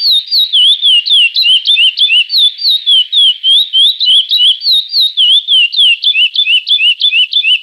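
Curió (chestnut-bellied seed finch) singing the classic 'praia' song. It is a fast, unbroken run of clear whistled notes that slide up and down, several a second.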